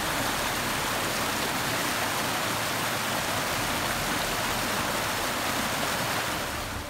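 Small mountain creek cascading over rocks and fallen logs: a steady, even rush of falling water.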